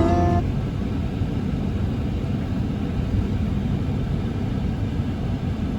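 Gale-force wind buffeting the microphone: a loud, continuous low rumble with irregular gusty swells.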